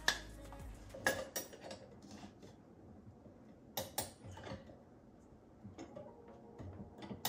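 Light clicks and taps of small decor pieces, a metal-stand sign among them, being set down and adjusted on a wooden shelf: scattered sharp clicks, a pair about a second in and another pair about four seconds in.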